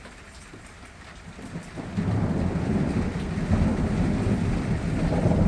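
Thunder rumbling: after a second or so of light rain hiss, a deep rumble swells up about a second and a half in and rolls on loudly, with rain falling underneath.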